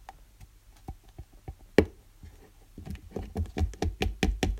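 An old slime that has gone bad, worked by hand, making sticky clicks and pops. They come sparsely at first, with one loud pop near the middle, then quicker and louder over the last couple of seconds.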